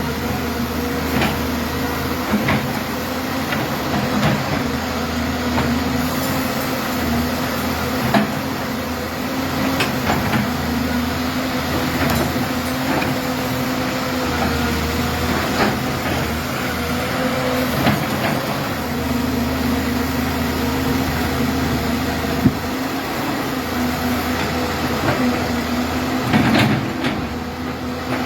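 Caterpillar 200B hydraulic excavator's diesel engine running steadily, its low rumble swelling and easing every few seconds as the machine works under load digging mud, with scattered sharp knocks and clanks from the arm and bucket.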